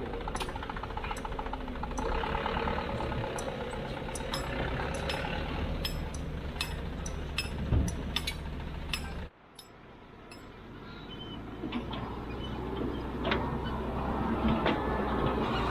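Heavy machinery engine running steadily, with frequent sharp metallic clicks and clanks over it; the sound drops away suddenly about nine seconds in, then builds back up.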